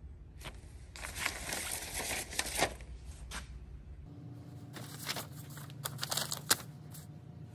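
A paper instruction sheet rustling and crinkling as it is handled, then a few light clicks and knocks as parts and tools are handled.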